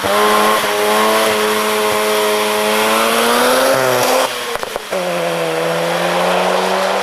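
Mazda RX-7 FD's twin-rotor 13B-REW rotary engine running hard at high, nearly steady revs. About four seconds in it briefly drops off with a few crackles, then pulls again at a slightly lower pitch.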